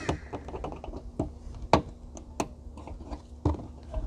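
Sharp plastic clicks and knocks from a flathead screwdriver prying a trunk panel push-rivet clip loose, several uneven taps with the loudest about halfway through.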